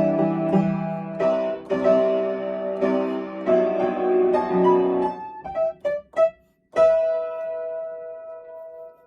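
Piano playing a melody with chords; about five seconds in it breaks into a few short detached notes with a brief silence, then a single held note is left to ring and fade before the playing resumes.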